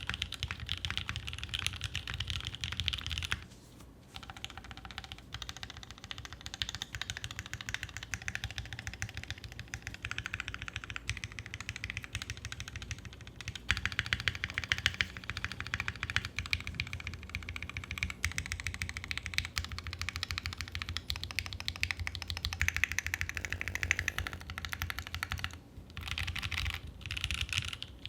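Continuous fast typing on a NEO Keys Element G67 gasket-mount 65% mechanical keyboard with lubed OA linear switches, a carbon fibre plate, PCB foam and GMK keycaps. It is a clacky, not too deep keystroke sound, with short pauses in the typing twice.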